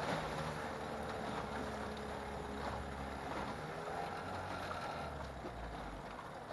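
Small outboard motor running with the boat under way, over a hiss of wind and water; the motor sound eases off near the end.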